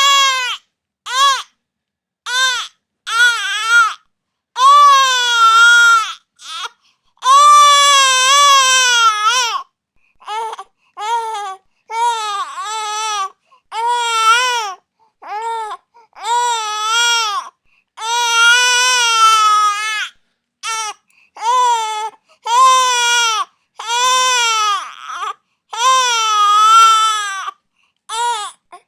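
Infant crying in a long run of wails, some drawn out for about two seconds and others short, each rising and falling in pitch, with brief breaks for breath between them.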